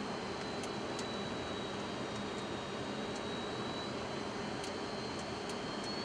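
Steady flight-deck noise of a Boeing 737-200 on final approach, with gear and flaps down: an even rush of airflow and engine noise, and a faint steady high whine over it.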